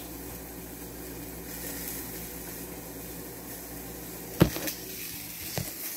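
A pot of potatoes boiling on the stove, a steady low bubbling hum. A sharp knock comes about four and a half seconds in, likely something set down or the pan handled, and a softer knock follows about a second later.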